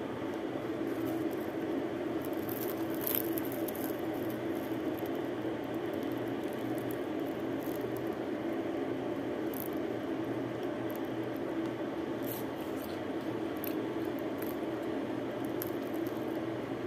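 Steady low hum and hiss of background noise, with a few faint scattered clicks.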